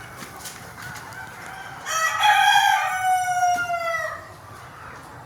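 A rooster crows once, starting about two seconds in. The crow is a single call about two seconds long that falls in pitch at its end, over faint clucking from the flock.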